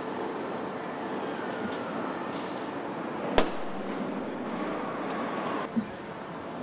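Steady hum of a car assembly line, with one sharp clack about three and a half seconds in and a softer knock near the end.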